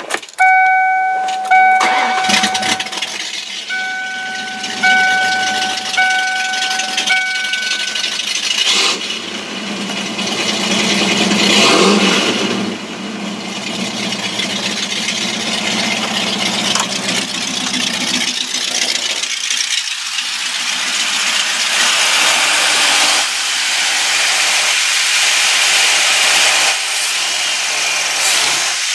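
Carbureted 351 Windsor V8 with a big cam and headers, in a 1995 Ford Mustang GT, running and being revved, the revs rising and falling about twelve seconds in. A repeating electronic chime sounds over the engine for the first eight seconds.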